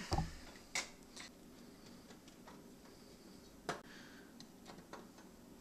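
Small screwdriver and screws clicking and tapping against a TV's sheet-metal chassis as a circuit board is fastened down: a handful of sharp clicks, with quieter ticks between.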